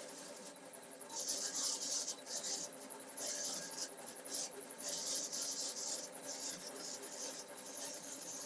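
Electric drill running a bi-metal hole saw through metal, its teeth scraping in irregular high scratchy bursts over the drill's steady hum.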